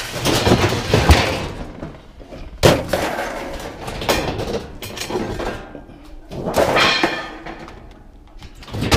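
Scrap crashing and clattering as it is dumped at a scrapyard: a series of about five loud crashes a second or two apart, each trailing off in a rattle.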